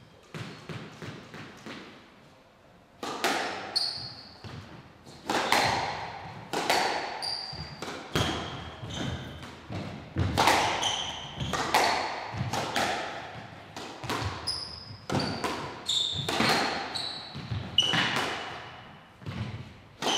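Squash rally: the ball cracks off rackets and the walls about once a second, each hit echoing in the court, with short high squeaks from the players' shoes on the court floor. A few soft taps come first, and the rally starts about three seconds in.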